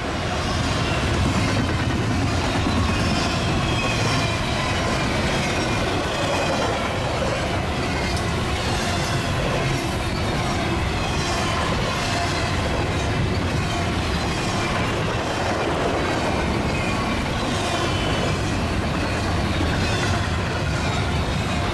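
Union Pacific double-stack container train rolling past at a steady level, its well cars' wheels clicking regularly over the rail joints.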